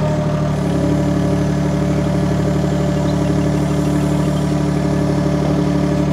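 UHI UME12 mini excavator's engine running steadily while its single-tine ripper arm works a rotted stump out of the ground, the engine note shifting slightly about half a second in.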